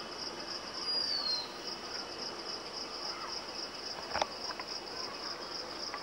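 Crickets trilling in an even, fast-pulsing high chirp. A short falling whistle comes about a second in, and a single soft click comes around four seconds in.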